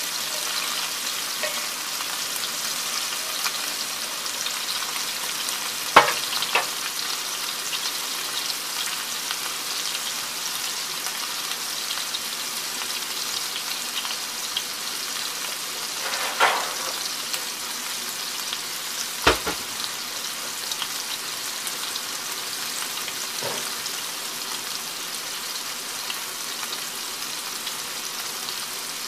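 Meatballs frying in oil in a cast-iron skillet: a steady sizzle. A few sharp clicks break it, the loudest about six and nineteen seconds in.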